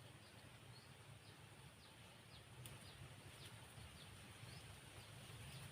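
Faint outdoor ambience: short, falling bird chirps at irregular intervals over a steady high insect whine and a low rumble.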